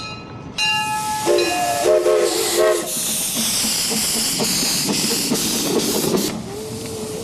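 Miniature steam locomotive's steam whistle blowing several blasts, then a loud hiss of escaping steam for about three seconds. The whistle and the hiss together are too noisy for a small child riding in the car.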